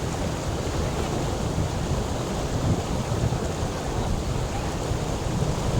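Flowing water rushing steadily, a constant noise heaviest in the low rumble.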